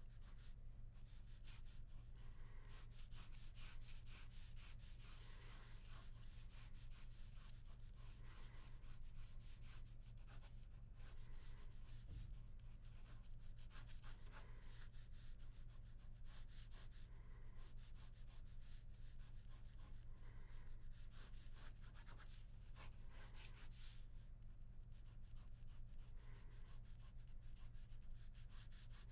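Ballpoint pen scratching rapidly across paper in quick sketching strokes, faint, over a low steady hum.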